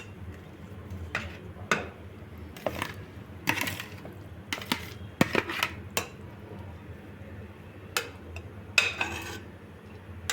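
A serving spoon clinks and scrapes irregularly against a steel pot as par-cooked basmati rice is scooped and layered over chicken in a pressure cooker.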